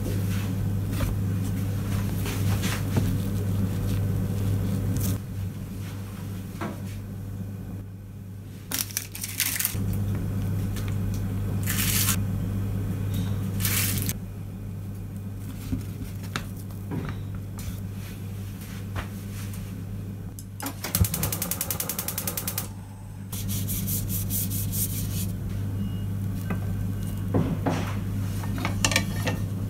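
Kitchen handling sounds over a steady low hum: food and utensils moved on a wooden cutting board and pans set down. About two-thirds of the way through, a fast, even run of clicks lasts about two seconds, a gas stove burner's igniter sparking, followed by a hiss.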